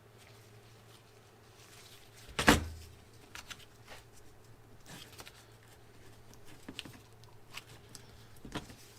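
Hand work on hydraulic cylinder parts while new seals are fitted: one sharp knock about two and a half seconds in, then scattered light clicks and taps of tool and parts, over a faint steady hum.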